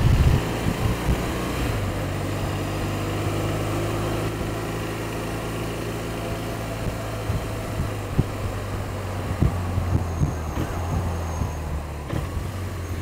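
Motorcycle engine running at low, steady revs, a steady low hum that drops in level just after the start.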